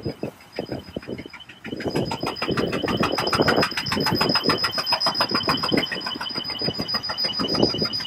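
Diesel engines of large decorated dump trucks as they drive past one after another, the rumble rising about two seconds in. A high, rapidly pulsing tone runs underneath throughout.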